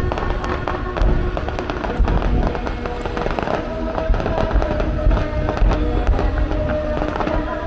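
Aerial fireworks going off in quick succession, with deep booms and many sharp crackling bursts, over the display's music soundtrack.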